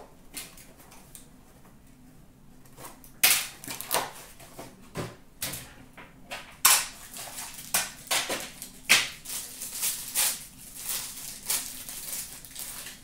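Hockey card box packaging being opened and handled: a run of sharp crinkles, clicks and rustles that starts about three seconds in, as the crinkly foil wrapper is torn and worked open by hand.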